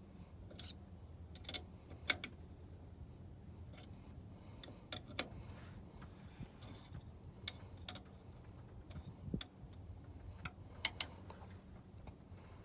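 Irregular light clicks and taps of hand work on a brake master cylinder and its plastic bleed-kit fittings, with a couple of sharper clicks about two seconds in and near eleven seconds, over a low steady hum.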